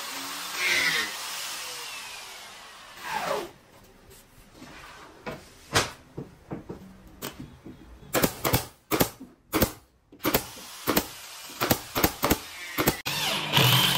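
Woodworking power tool spinning down with a falling whine about three seconds in, followed by a run of sharp, irregular knocks on wood, and a power tool starting up again near the end.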